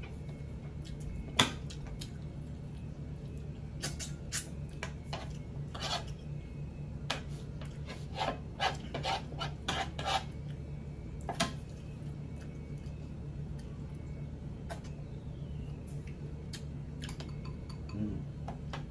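Spoon and fork clinking and scraping against a plate and bowl while eating, in scattered sharp clicks with a busier run near the middle, over a steady low hum.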